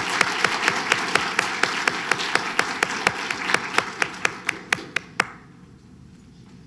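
Audience applauding, with one set of hand claps standing out sharply and evenly over the crowd. The applause dies away about five seconds in.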